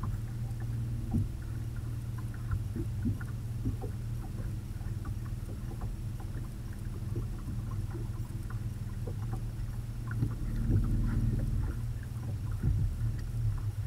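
Bow-mounted electric trolling motor on a bass boat running with a low, steady hum carried through the hull, a little louder for a second or so about ten seconds in, with scattered small knocks and taps on the deck.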